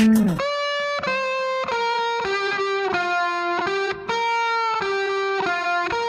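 Background music: a guitar melody of held notes, a new note every half second or so.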